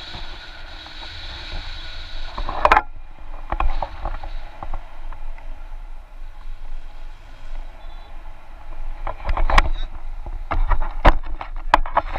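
Wind rushing over the camera microphone during a paraglider flight: a steady low rumble and hiss, with a cut-off in the brighter hiss nearly three seconds in. Scattered knocks and clicks from the camera pole being handled grow more frequent near the end.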